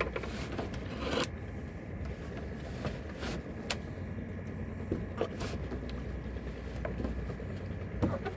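A boat engine running steadily as a low hum, with scattered sharp knocks and clicks over it.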